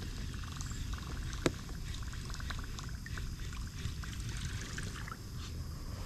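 Kayak being paddled through shallow creek water: small splashes and trickles from the paddle strokes, with one sharp knock about one and a half seconds in.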